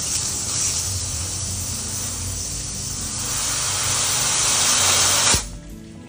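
A pressurised spray hissing steadily while brake caliper parts are cleaned. It grows a little louder, then cuts off sharply about five seconds in, with soft background music underneath.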